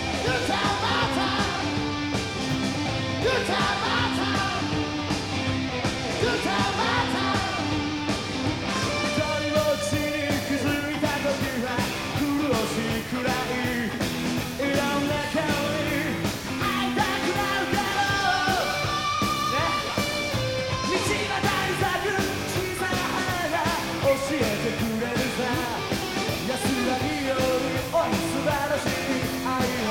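A rock band playing live: drum kit and electric guitars, with a singer's vocals and yells over the band.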